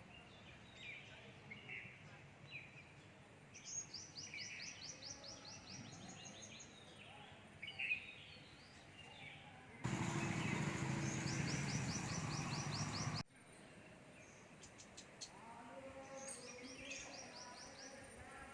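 Several birds chirping and calling, with rapid runs of repeated high notes heard a few times. In the middle, a louder rushing noise with a low hum lasts about three seconds, starting and stopping abruptly.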